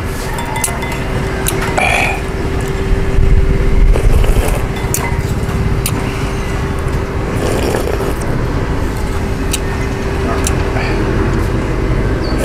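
Noodle soup being eaten: a spoon and chopsticks clicking against the bowl, and noodles slurped off the spoon. Under it, a low rumble that swells a few seconds in and a steady hum.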